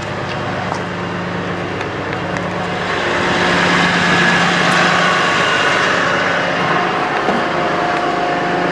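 2009 Sterling Bullet bucket truck's diesel engine idling steadily with the PTO engaged to drive the boom's hydraulic pump. The hum grows louder about three seconds in.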